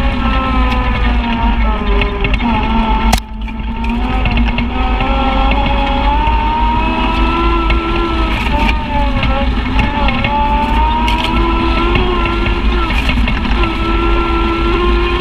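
Side-by-side UTV engine running while driving a dirt trail, its pitch rising and falling with the throttle over a heavy low rumble. A sharp click about three seconds in is followed by a brief dip in loudness.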